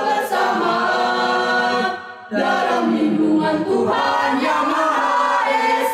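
Mixed youth choir of boys and girls singing a school march a cappella, with long held notes and a short break about two seconds in.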